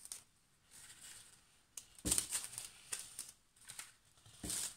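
Plastic packaging and paper rustling and crinkling as craft-kit items are handled, in short spells about two seconds in and near the end, with a single light click just before the first.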